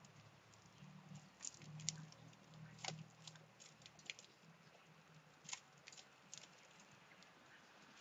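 Faint, irregular clicks and taps of birds pecking and cracking seed on a hanging seed feeder, about eight in all, over a faint low hum in the first half.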